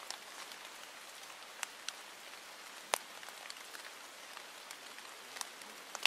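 Raindrops pattering: irregular sharp ticks over a steady hiss, the loudest tick about three seconds in.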